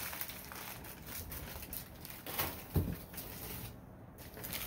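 Quiet rustling and handling as glassware is lifted out of a box of packing paper, with a couple of soft knocks a little over halfway through.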